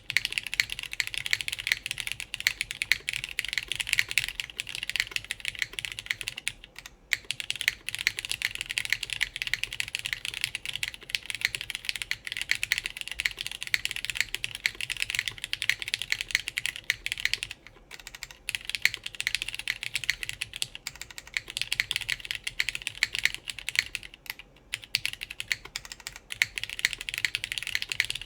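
Steady typing on a plateless, gasket-mounted mechanical keyboard with lubed Cherry MX Black linear switches and GMK keycaps: a dense run of keystroke clacks that pauses briefly three times.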